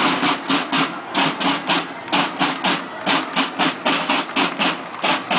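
Marching band drums, snare and bass drum, beating a steady marching cadence of about three to four strokes a second.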